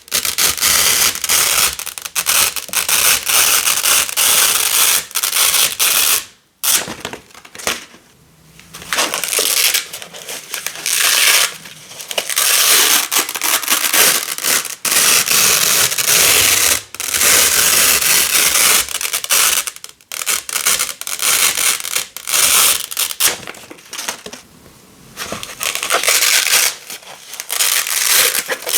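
Hook-and-loop (velcro) tape, black hook against coloured loop rolls, being peeled apart again and again with a crunchy crackling rip, in long pulls broken by short pauses.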